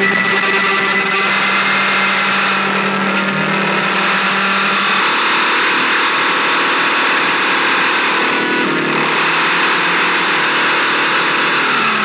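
A car's engine and road noise heard from inside the cabin while driving: a steady, loud drone whose pitch shifts about five seconds in.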